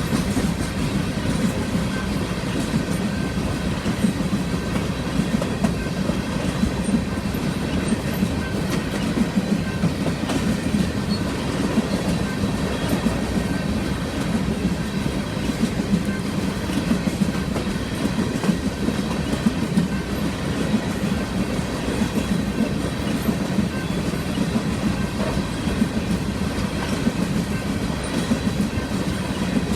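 Empty coal cars of a Union Pacific freight train rolling past, the wheels clattering steadily on the rails with frequent small knocks.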